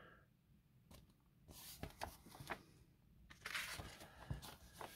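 Faint rustling and a few soft clicks of a small magazine's paper pages being handled and turned, in two short spells.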